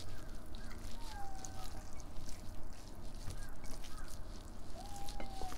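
Hands mixing rice and mutton curry on ceramic plates: soft squishing with scattered small clicks. Two short whistle-like tones, one falling about a second in and one rising near the end.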